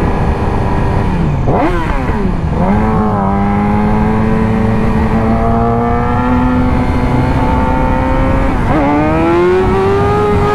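Sportbike engine running under way. The revs fall and pick back up about two seconds in, then climb slowly and steadily, with a brief dip and a quicker climb near the end.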